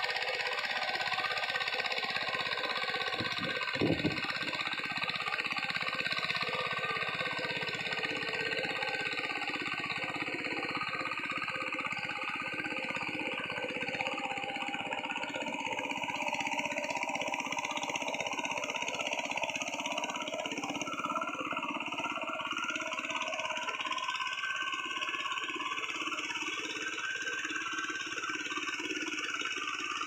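VST power tiller's single-cylinder diesel engine running steadily under load as the tiller ploughs wet paddy mud, with a fast even chugging. One sharp knock sounds about four seconds in.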